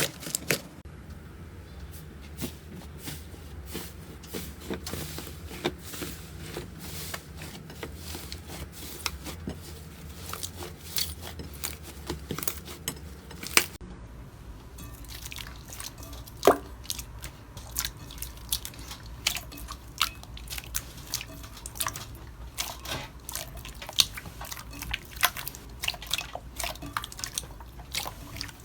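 Slime being squeezed and worked by hand, with frequent small wet pops and clicks. The background changes about fourteen seconds in as a new clip begins.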